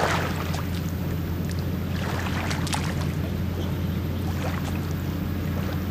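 A boat's outboard motor running steadily at low revs, giving a low, even hum, with a few light clicks and knocks on top.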